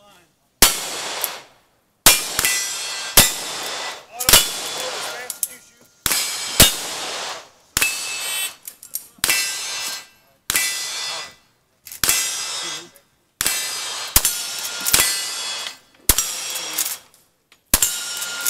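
Cowboy action shooting stage: a single-action revolver and later a lever-action rifle fired in a long string of shots at an uneven, quick pace, about one a second. Each shot is followed by the clang and ring of a struck steel target.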